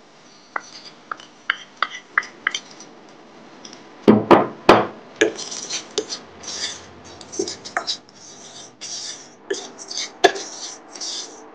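A spoon working in a stainless steel kadai as roasted little millet semolina is added to cooked vegetables: light clicks at first, a few loud knocks about four seconds in, then irregular rasping scrapes and clinks as the semolina is stirred in.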